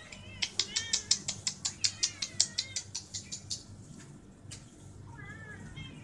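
Small birds chirping: a quick run of sharp, high chirps, about six a second, for some three seconds, and a shorter, lower chirping call near the end.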